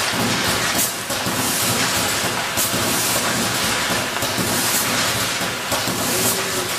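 Automatic punnet labelling and conveyor line running: a steady mechanical hiss and rumble, with a short sharp sound about every two seconds.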